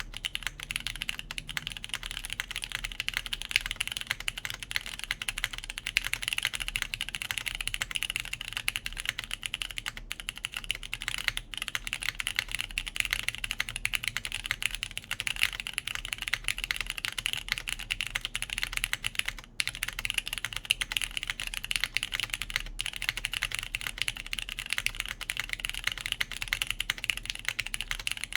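Fast, continuous typing on a custom mechanical keyboard: lubed Cherry MX Brown tactile switches under GMK keycaps on a polypropylene plate, o-ring mounted. Dense key clicks with only a few short breaks.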